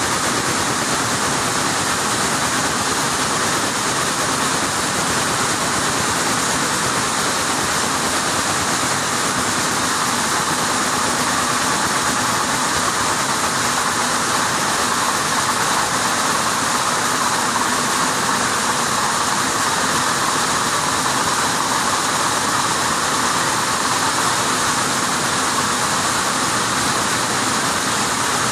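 Many weaving looms running together in a weaving shed: a loud, steady, unbroken mechanical din.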